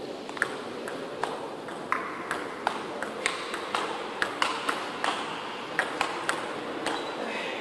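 Table tennis rally: the ball clicking off the players' paddles and bouncing on the table, about three sharp hits a second.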